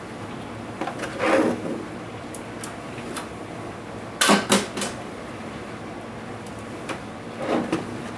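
Handling noises of an ASUS G1S laptop being taken apart: a few clusters of sharp clicks and knocks as parts are moved, pried and set down, the loudest a quick group of several just after four seconds in.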